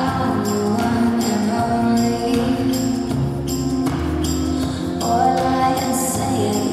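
Recorded music playing: held notes over a steady low line, with bright, shimmering high accents every second or so.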